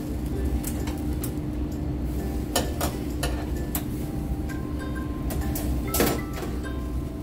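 Metal kebab skewers clinking and scraping against the grill rails as they are turned over hot charcoal: a series of short, sharp clinks, the loudest about six seconds in, over a steady low hum.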